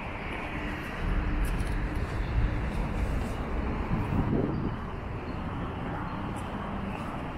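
City street traffic noise: cars running along the road, swelling louder for a few seconds as vehicles pass close by.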